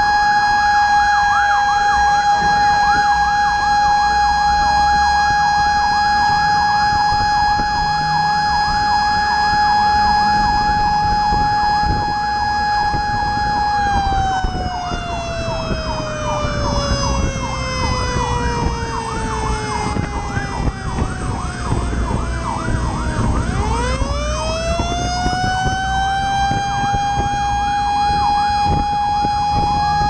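Fire truck sirens sounding while the truck drives. One siren holds a steady high pitch, falls slowly in pitch about halfway through, then rises back up near the end, while a second siren yelps rapidly over it. The truck's engine runs underneath.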